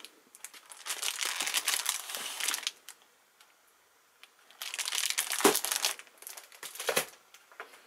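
Crinkling of the cellophane wrap around a notebook organiser as it is opened and handled, in two spells with a pause between. Soft knocks about five and a half seconds in and again near the end as the folder is handled and moved on the desk.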